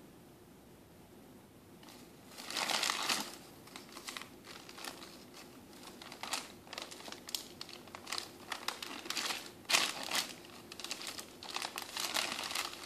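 Glossy magazine and flyer pages crinkling and crumpling as a baby grabs and tears at them with her hands. The sound comes in irregular crackly bursts starting about two seconds in, the loudest just after they begin.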